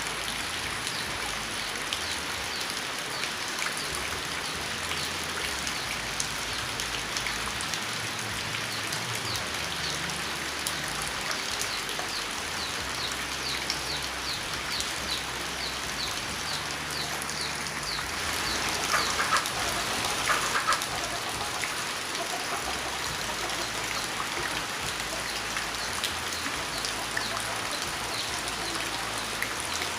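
Steady rain falling. A bird calls in a run of short, repeated high notes near the middle, followed by a louder burst of calling a little after the middle.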